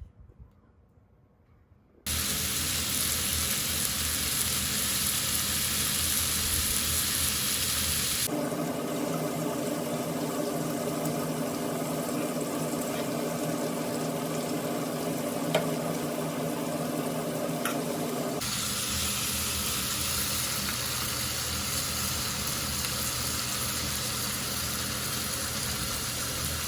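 Food sizzling and being stirred in a hot frying pan during stir-frying: a steady loud hiss that starts abruptly about two seconds in and changes tone sharply twice, at about 8 and 18 seconds, where the footage is cut.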